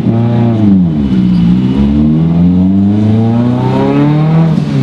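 Heavily tuned Mitsubishi Lancer Evolution's turbocharged four-cylinder engine, heard from inside the cabin. The revs fall away over the first second and a half, then climb steadily as the car accelerates, and drop again right at the end.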